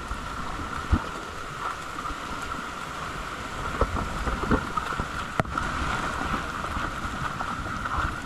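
Steady rain with a loaded hand cart rattling and knocking as it is pulled over a wet concrete path. Several sharp knocks come about a second in and again from about four to five and a half seconds in.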